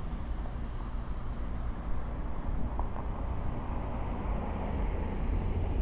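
Boeing 737-900ER's CFM56 jet engines at takeoff thrust, heard from a distance as a steady low rumble that grows a little louder near the end.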